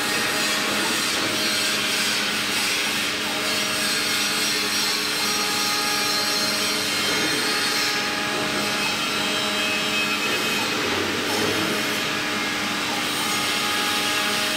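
Small 5-axis CNC router carving a bust: the spindle runs at a steady pitch while the cutter works the rotating workpiece, a continuous cutting noise with no breaks.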